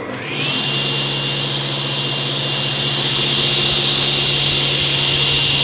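Charnwood W660 10-inch table saw started up and running free with nothing being cut. Its whine rises in pitch as the blade comes up to speed in the first half second, then holds as a steady, loud whirr.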